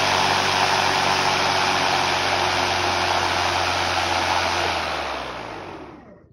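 Ego 56V cordless lawn mower's motor and stacked twin cutting blades spinning at full speed with a steady whir and rush of air, then winding down. The sound fades out to nothing near the end.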